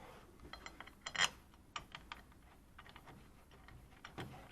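Scattered light clicks and taps of small hardware and tools being handled, with a louder cluster of clicks about a second in.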